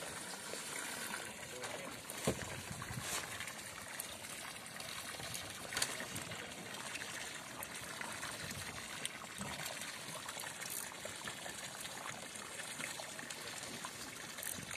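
Small waves lapping and splashing against a wooden boat's hull, a steady wash of water sound with two short knocks in the first half.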